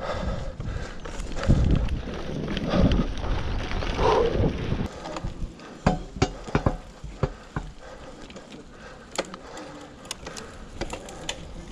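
Mountain bike ridden over rough ground: wind and bumps buffet the camera microphone in surging waves. About five seconds in it goes quieter, leaving scattered clicks and knocks from the bike's rattling parts.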